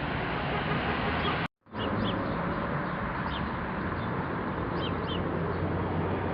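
Outdoor ambience: a steady low noise with small birds chirping briefly several times. The sound cuts out completely for a moment about a second and a half in.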